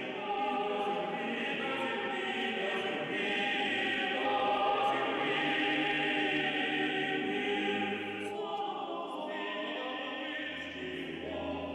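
Small male choir singing Orthodox church music in held chords.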